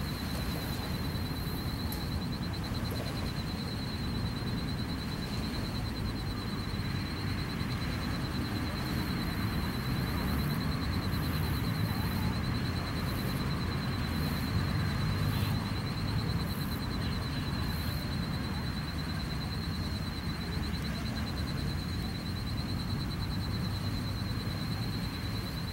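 Steady outdoor background noise, mostly a low rumble, with a thin, continuous high-pitched tone running through it.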